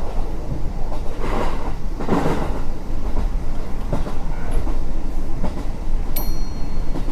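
Steady low rumble of a moving vehicle, with swells of noise near the start and a few sharp knocks later on. Brief high tones sound about six seconds in.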